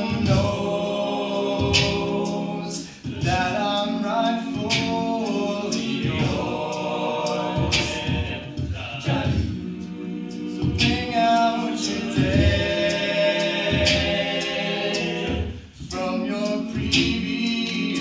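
All-male a cappella group singing, a lead voice at the front microphone over the other men's backing harmonies, with no instruments.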